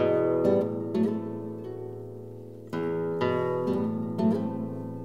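Background music: a plucked string instrument playing chords, each struck and left to ring and fade, with new chords every half second to a second and a half.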